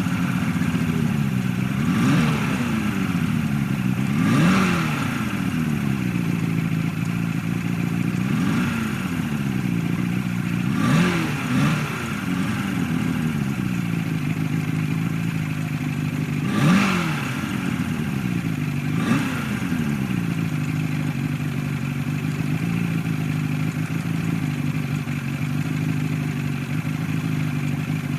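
70 hp outboard boat motor running, revved up and back down about seven times in quick swells of pitch, then holding a steady, even run near the end.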